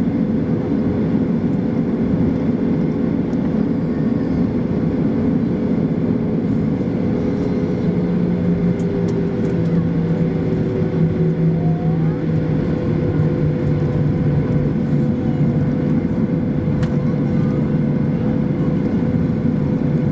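Steady engine drone and airflow inside the cabin of a Boeing 737-800 with its CFM56-7B turbofans running, a few steady hum tones over it. A lower hum joins about eight seconds in.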